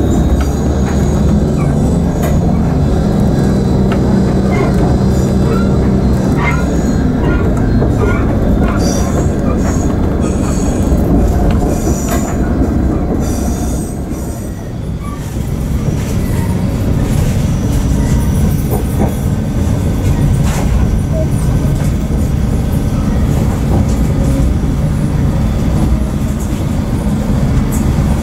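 Regional diesel railcar running, heard from inside the driver's cab: a low engine drone, with wheels squealing intermittently and clicking over points and rail joints.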